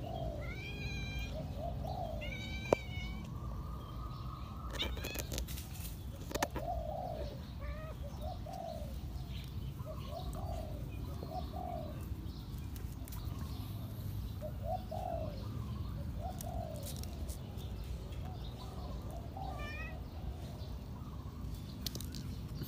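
Domestic cat meowing over and over in short mews, a second or two apart.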